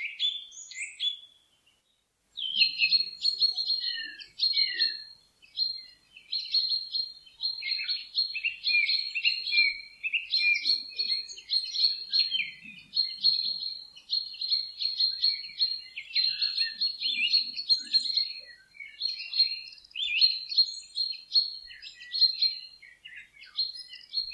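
Songbirds chirping and trilling in fast, dense high-pitched phrases, with a short pause about two seconds in.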